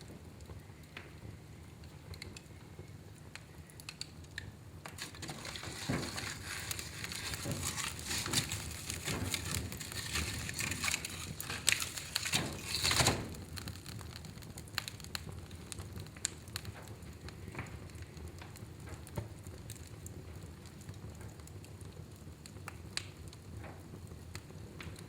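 Fire burning in a fireplace, crackling and popping in scattered sharp clicks over a soft hiss. The crackling grows denser and louder for several seconds in the middle, peaking a little past the halfway point, then thins out again.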